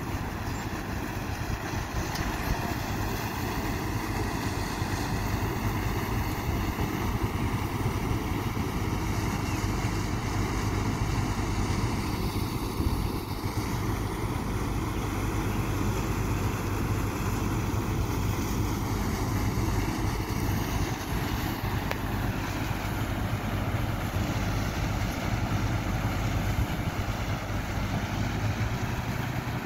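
Engine of a truck-mounted rotary drilling rig running steadily as it bores a tubewell, with muddy drilling fluid gushing and splashing into the mud pit.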